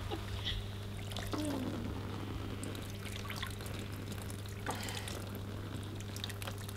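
Water dripping and trickling from a wet carp weigh sling as it hangs from the scales with the fish inside, in scattered small drips over a steady low hum.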